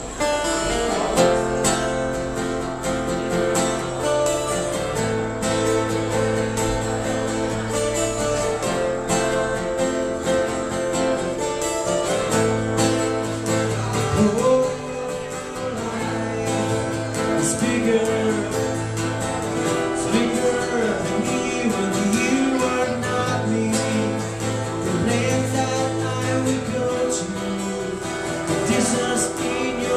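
Acoustic guitar music: an instrumental passage of strummed and plucked chords changing every few seconds.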